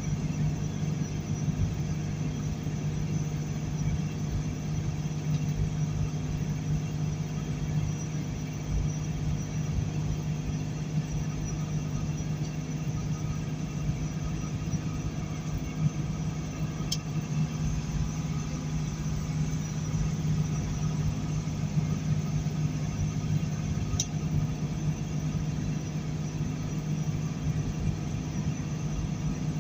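Steady engine drone and road rumble heard inside the cab of a loaded semi truck cruising at about 47 mph on a snowy highway, with a constant low hum. Two brief faint ticks come in the second half.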